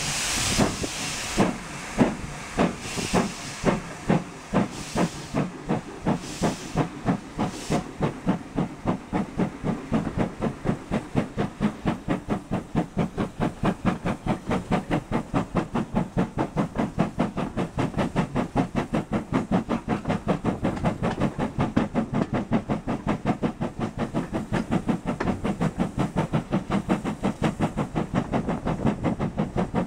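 Ex-GWR 0-6-2T steam locomotive No. 5637 pulling away under load, heard from the coach behind it: a steady chuff of exhaust beats quickening from about one and a half to four or five a second. For the first eight seconds each beat carries a hiss of steam from the open cylinder drain cocks, which then stops.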